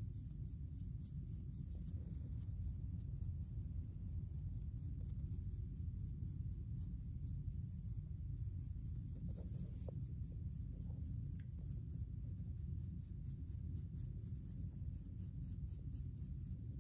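Fine-tooth plastic comb and fingernails scraping over short, dry, flaky hair and scalp in quick repeated strokes, loosening dandruff flakes.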